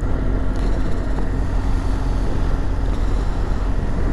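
BMW R1200GS LC's liquid-cooled boxer-twin engine running steadily.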